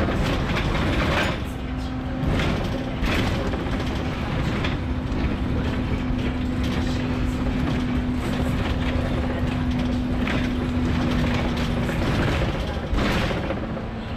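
City road traffic passing close by: cars, vans, trucks and a double-decker bus, with a steady low engine hum that stops near the end.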